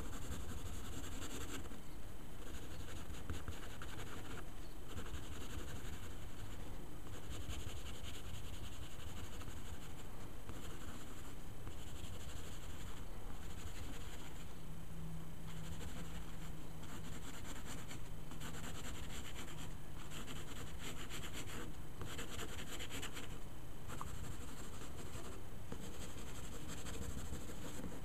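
Wooden graphite pencil scratching over drawing paper in sketching and shading strokes, in runs broken by short pauses.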